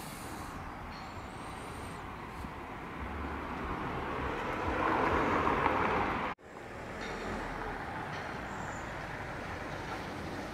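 Street background with a passing road vehicle, whose tyre and engine noise swells over a few seconds and then cuts off abruptly about two-thirds of the way in, followed by steady outdoor background noise.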